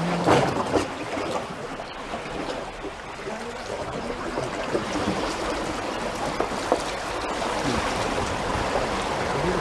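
Water rushing steadily, an even noisy flow with no clear rhythm.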